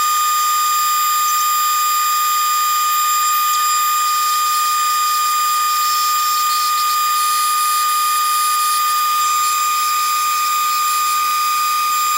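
Knifemaker's belt grinder running at speed, giving a loud steady high-pitched whine with a hiss of belt noise. Near the end it cuts off with a quick drop in pitch.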